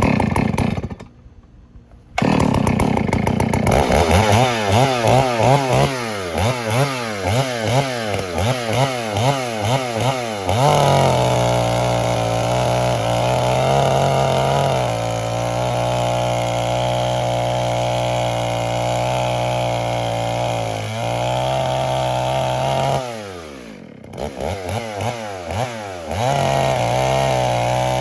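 Gas chainsaw revved in quick repeated blips of the throttle, then held at steady full throttle while cutting a tree down in pieces. Its revs drop away near the end and climb again.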